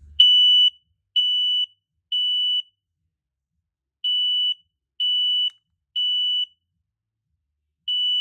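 1276 smoke alarm sounding its code 3 (temporal-three) evacuation pattern: three high-pitched half-second beeps, a pause, three more, and the next group starting near the end. Running on AC power alone without its battery, which gives a slightly faster code 3.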